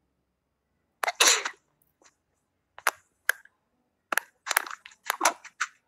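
A run of irregularly spaced sharp clicks and short crackling bursts. The first, about a second in, is the longest.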